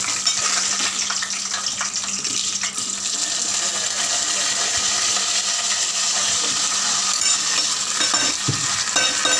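Cashew nuts frying in hot oil in an aluminium pot: a steady sizzle with dense crackling.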